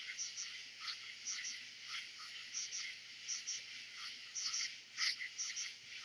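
Southern summer night chorus of katydids, crickets and frogs blended into one dense, continuous sound: a steady high hiss with short loud calls pulsing several times a second.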